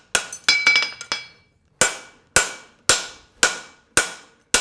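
Hand hammer striking a narrow fuller held on a steel horseshoe on the anvil, fullering the nail groove: sharp metallic blows about two a second, each with a short ring. About half a second in comes a quick flurry of lighter, ringing taps.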